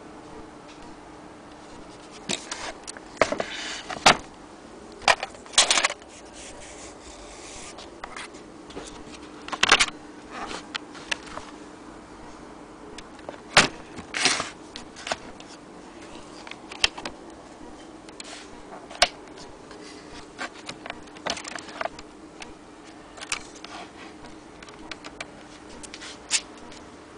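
A vintage Good Companion 3 portable typewriter being handled: irregular clicks, clacks and short scraping, rubbing sounds in small clusters with pauses between, over a faint steady hum.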